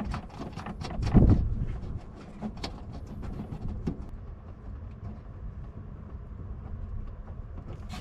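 Light clicks and knocks from small metal parts and tools being handled, with a louder knock about a second in, over a low steady rumble.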